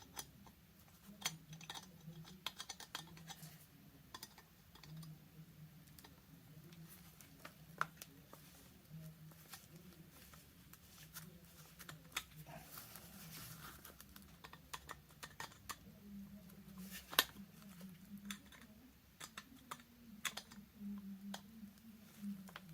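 Scattered small metallic clicks and taps of pliers and a slotted screwdriver working on a miner's lamp, as the threaded brass flint wheel button is screwed down onto the flint wheel; two sharper clicks stand out, one about eight seconds in and one about seventeen seconds in. A faint steady low hum runs underneath.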